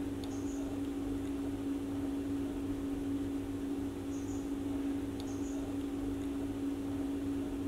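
Steady machine hum holding one constant low tone. A few short, faint high chirps come through it, and there are two faint clicks, about a second apart from the start and again about five seconds in.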